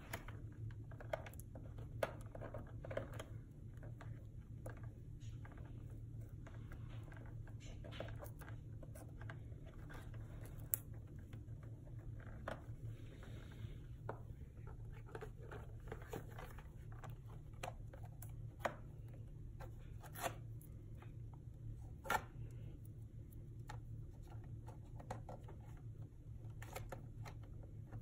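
Fingernails picking and scratching at the tape and edges of a cardboard-backed plastic blister toy package, with scattered sharp clicks and short tearing rustles as the stubborn package is pried at.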